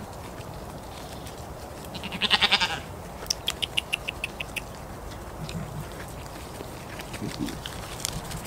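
A goat bleats once, a loud wavering call about two seconds in, followed by a quick run of about eight sharp high ticks.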